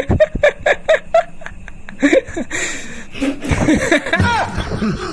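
People laughing and giggling. Rapid, rhythmic 'ha-ha' pulses in the first second give way to looser chuckling and snickers.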